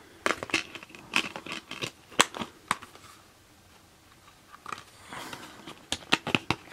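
Clicks and rattles of a clear plastic Blu-ray case being handled, with the disc taken off and pressed back onto its centre hub. Sharp clicks come in two bursts with a quieter pause between them.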